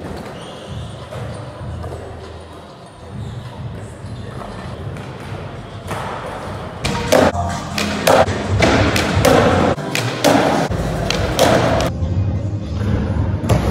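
Skateboard rolling on concrete, with a run of sharp thuds and clacks from the board in the second half, over background music.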